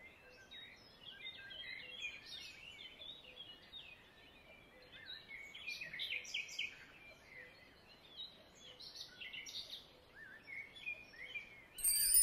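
Birds chirping and twittering, short high calls overlapping throughout. Near the end a much louder bright, shimmering chime sets in.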